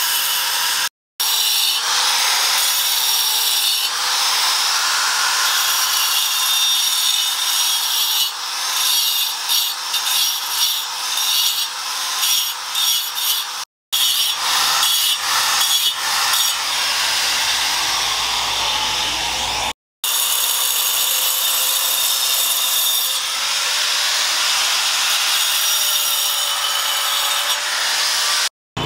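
Handheld angle grinder cutting and grinding a block of sandstone: the motor's steady whine under the gritty scraping of the disc on stone, its pitch wavering as the disc is pressed in. The loudness rises and falls unevenly through the middle, and the sound drops out briefly three times.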